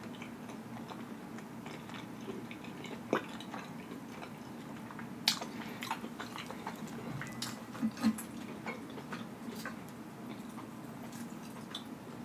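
A person chewing a mouthful of cheesy meatball with the mouth closed, making soft mouth clicks and smacks, with a few sharper clicks about 3, 5 and 8 seconds in.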